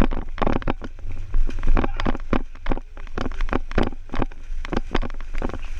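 Feet splashing through shallow lake water as someone runs in, with a quick run of splashes about two or three a second over a steady low rumble.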